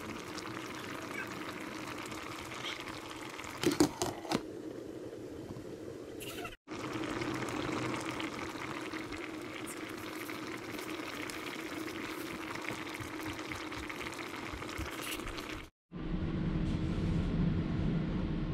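Chicken and coconut-milk soup bubbling steadily at a boil in a pot on the stove, with a few sharp clinks about four seconds in. After a brief cut near the end, a lower steady rumble takes over.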